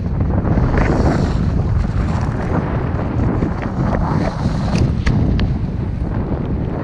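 Wind buffeting the camera microphone in flight under a paraglider: a steady, low-pitched rush.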